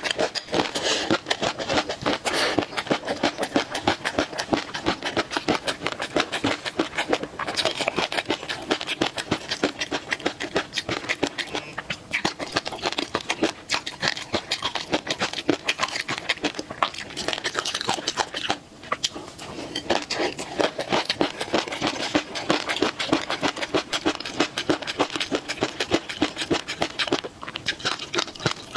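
Close-miked chewing of a mouthful of spicy peanut dish: a dense, continuous run of wet mouth clicks and smacks, with short pauses between bites.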